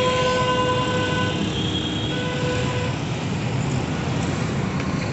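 A motorcycle's single-cylinder engine running as a new TVS Apache RTR 160 2V is ridden off, under a long steady horn-like tone that stops about three seconds in.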